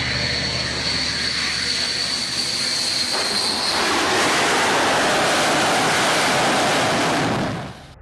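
Jet aircraft noise: a steady engine sound with a high whine, then a louder rushing roar from about four seconds in that fades and cuts off just before the end.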